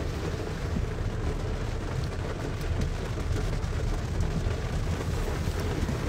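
Heavy rain pelting a car's roof and windshield, heard from inside the moving car over steady road noise.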